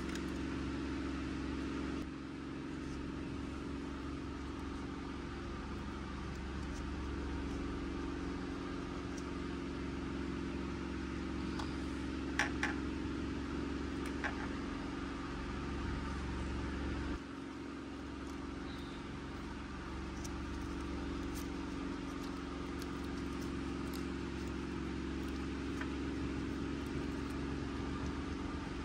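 A steady low mechanical hum with several faint steady tones, dipping slightly in level about two seconds in and again about seventeen seconds in. A few light clicks and taps of small plastic toy pieces being handled, most clearly about twelve and fourteen seconds in.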